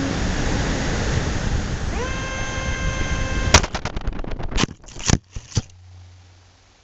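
Onboard sound of an RC Dynam A-10 foam jet crashing. First comes air rush and electric ducted-fan noise, with a whine that rises about two seconds in and then holds. About three and a half seconds in there is one sharp, loud impact, followed by a string of smaller cracks and knocks as it tumbles, then a faint low hum.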